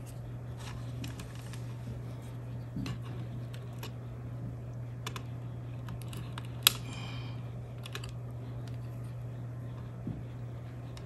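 Small scattered clicks and scrapes of a screwdriver loosening the screw terminals on a plastic thermostat wall plate as the wires are worked free. About two-thirds through comes one sharper click with a brief ringing after it. A steady low hum runs underneath.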